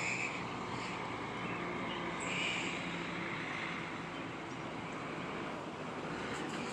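Steady hum of vehicle engines and traffic, with no sharp or sudden sounds.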